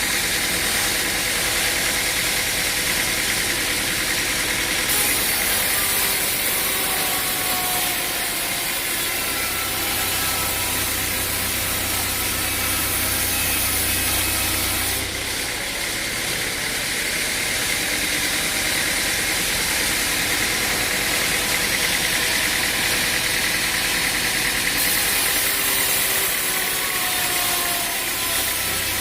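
A machine engine running steadily, with a hiss-like band of mechanical noise. The sound changes abruptly a few seconds in, again midway and again near the end.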